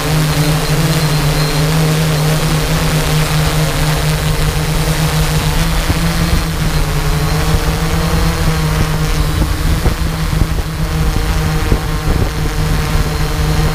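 Drone's electric motors and propellers whirring steadily, heard close from the drone's own camera as it descends; the pitch of the hum shifts slightly partway through.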